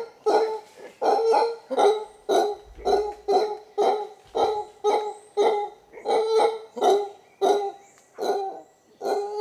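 Howler monkey calling: a long series of short, repeated calls, about two a second.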